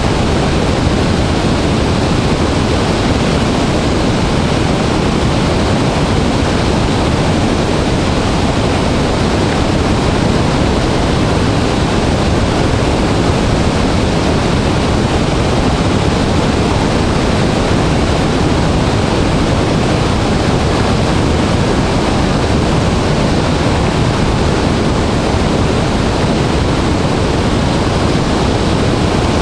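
Dray Nur Waterfall in high flow: a heavy volume of water plunging and churning, a loud, steady, deep rush.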